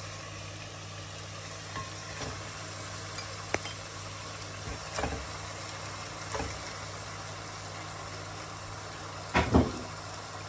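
Chicken bhuna frying in oil in a pot, a steady sizzle, with a spoon knocking and scraping against the pot a few times, loudest twice near the end.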